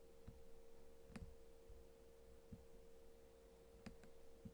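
Near silence: a faint steady hum-like tone, with a couple of faint computer mouse clicks about a second in and again near the end.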